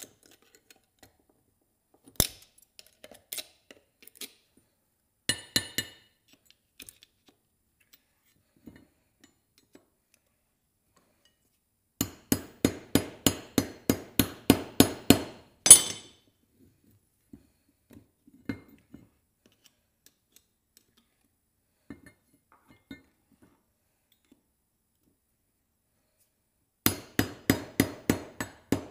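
Metal hand tools striking a scrap part being taken apart: two runs of quick sharp taps, about four a second, with a few single clinks between.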